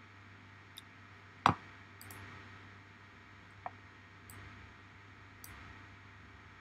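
Computer mouse clicking: a handful of short, sharp clicks spread over a few seconds, one much louder about a second and a half in, over a faint steady hum.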